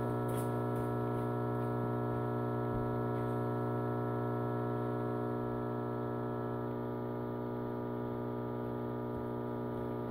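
PowerJack 15000 W split-phase inverter humming steadily under about 20 A of 240 V load. It is a low buzzing hum with many overtones. Some of the higher overtones fade and the hum eases slightly about two-thirds of the way through as the load is turned down.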